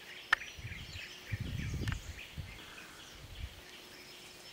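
Forest ambience: a chorus of short high chirps repeating several times a second, with low rumbles in the first two seconds and two sharp clicks, one near the start and one about two seconds in.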